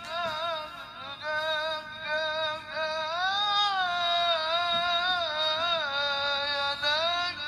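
A qari's high, ornate Quran-style chanting into a microphone: long melismatic phrases with wavering ornaments, a short breath break about a second in, then a long held line that rises and falls, typical of voice-and-breath practice in tilawah.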